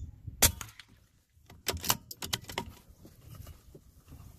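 A single .22 LR rifle shot cracks about half a second in. About a second later comes a quick run of metallic clicks as the CZ 452's bolt is worked to eject the case and chamber the next round.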